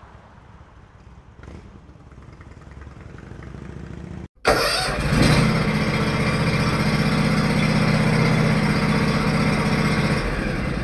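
Faint background noise, then after a brief dropout about four seconds in, an engine starts abruptly and runs loud and steady for about six seconds before cutting off near the end.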